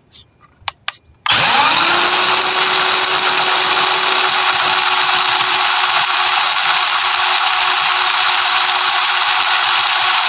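A few light clicks, then about a second in the electric motor of an RC crawler car spins up within a fraction of a second and runs at a steady high speed with a constant whine.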